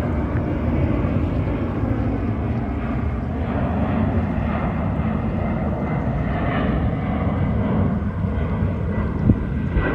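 Jet airliner climbing out after takeoff: a steady engine rumble, with a faint higher whine that rises and falls about six to seven seconds in.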